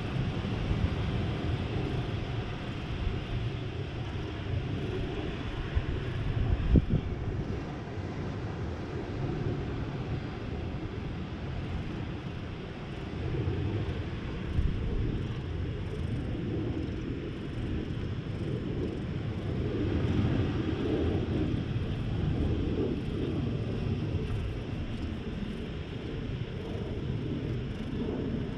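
Wind buffeting an action camera's microphone: a steady low rumble that swells and eases, with a single knock about seven seconds in.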